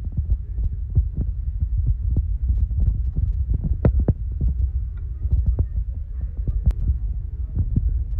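A steady low rumbling hum with many soft, irregular knocks and clicks over it.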